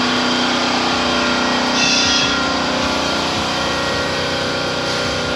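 A car engine running steadily.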